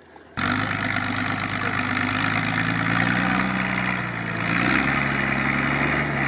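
Off-road truck's engine running steadily at low revs, cutting in abruptly just after the start; its pitch rises slightly and drops back a little past halfway.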